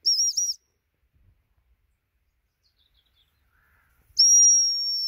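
ACME 210.5 gundog whistle: three quick short pips, the recall signal to come back, then near the end one longer single blast, the stop signal telling the dogs to sit.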